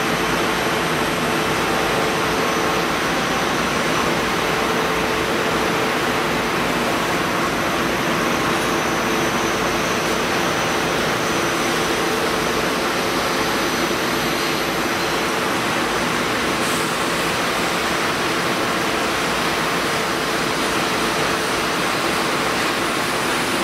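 PP raffia split-film extrusion line running: a steady, even machine noise with a couple of steady hum tones under it.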